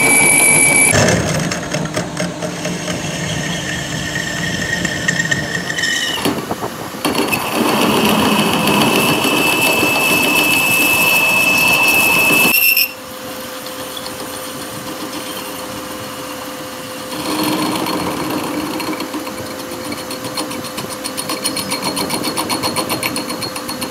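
Metal lathe boring out the inside of a steel rear axle housing end with a single-point tool: the machine runs steadily under a cutting noise. A high steady squeal from the cut sounds in the first second and again from about 7 s, then cuts off abruptly about 13 seconds in, leaving a quieter running sound that grows louder again near 17 s.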